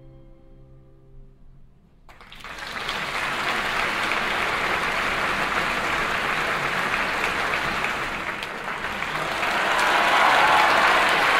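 The orchestra's final held chord dies away, and about two seconds in the theatre audience bursts into applause, which swells louder near the end.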